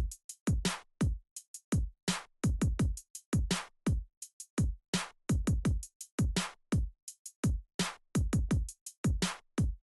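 Background electronic music: a drum-machine beat of deep kick drums that drop in pitch, with sharp percussive hits between them.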